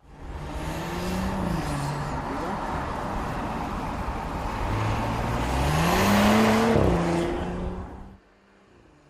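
Audi SQ5's V6 engine revving as the SUV drives, over a steady rush of tyre and road noise. The engine note climbs and falls about a second in, then climbs higher and louder around six seconds in before dropping. It cuts off suddenly near the end.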